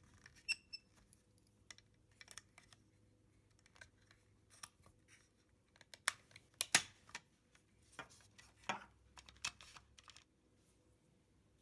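Scattered light clicks and taps of plastic toy parts being handled, as the elevator lift of a 1970 Hot Wheels Tune-Up Tower is slid back into place, with the sharpest few clicks about six to seven seconds in.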